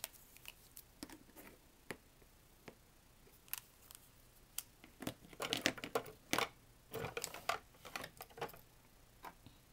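Plastic Copic Sketch markers clicking and knocking against each other and the cutting mat as they are picked up and set down in a row. It is a scatter of short clicks, busiest from about five to eight seconds in.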